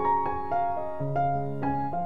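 Background piano music, with notes struck about twice a second.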